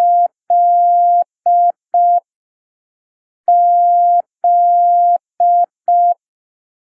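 Morse code letter Z (dah-dah-dit-dit) keyed slowly as a steady single-pitch beep tone, sent twice: two long beeps and two short ones, a pause of about a second, then the same again.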